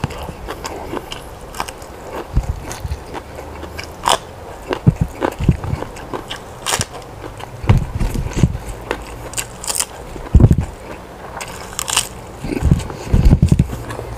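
A person eating: irregular biting and crunching with chewing, sharp crisp crunches mixed with soft low chewing thumps.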